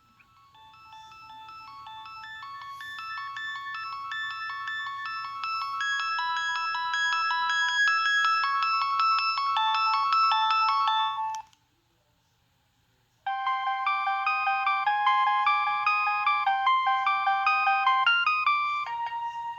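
Preloaded polyphonic ringtones playing on a Nokia 6610 phone. The first tune grows steadily louder, then stops about eleven seconds in. After a pause of under two seconds, a second tune of quicker notes starts at full volume.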